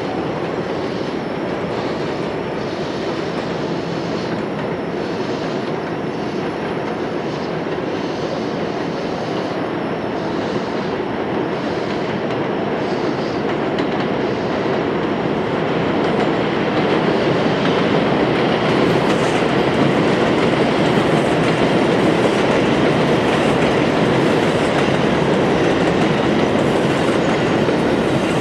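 Bombardier R-142 subway train running along the elevated Jerome Avenue line: a steady rumble and clatter of wheels on the track that grows louder about halfway through as the train comes closer.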